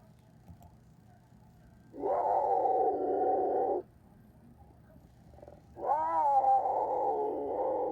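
Jaguar calling twice: a first drawn-out call of nearly two seconds, then a second one that opens with a wavering pitch and is still going at the end.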